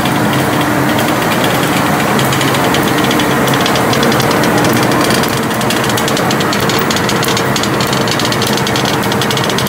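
Welding-electrode production machinery running: a loud, steady mechanical hum with a fast rattling clatter.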